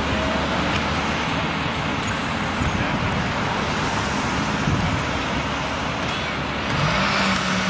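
Steady traffic and vehicle engine noise. Near the end a low engine hum rises briefly and then holds steady.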